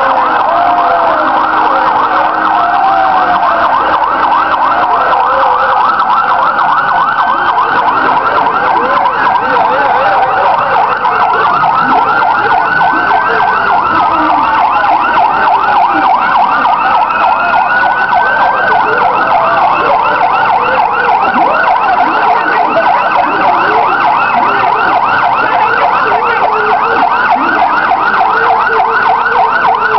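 Fire-service vehicle sirens sounding together, loud and continuous. One runs a fast, steady yelp, while another slowly wails up and down a couple of times in the middle.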